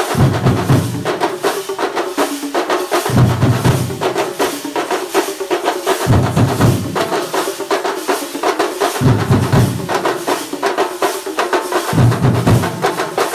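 Kerala chenda drum ensemble (shinkari melam style) playing a loud, fast, continuous barrage of stick strokes. A deep bass beat comes in for about a second roughly every three seconds.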